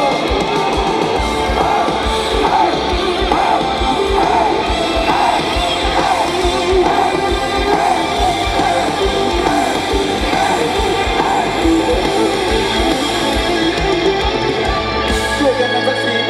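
Live rock band playing through a large PA: strummed acoustic and electric guitars over a steady kick-drum beat, with singing. The drums drop out near the end, leaving the guitars and a low held note.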